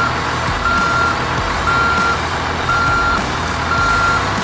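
Toy cement mixer truck's electronic sound effects: a reversing-alarm beep repeating about once a second, half a second on and half off, over a steady engine-like rumble.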